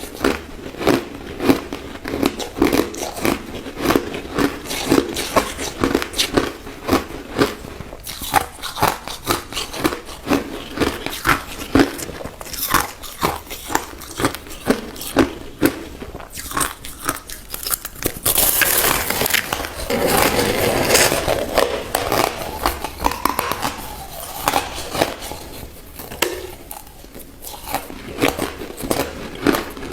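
A person biting and chewing white crushed ice, a fast run of sharp crunches, several a second. About two-thirds through there is a louder, denser stretch of crunching noise lasting a few seconds, then the steady crunching resumes.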